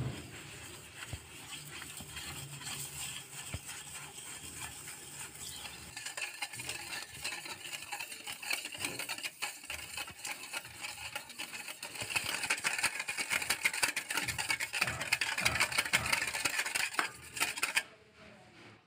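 A spatula stirring, then a wire whisk beating a thin milk and yeast mixture in a stainless steel bowl: a fast, continuous clatter and swish of metal wires against the metal bowl. It grows louder in the second half and stops suddenly near the end.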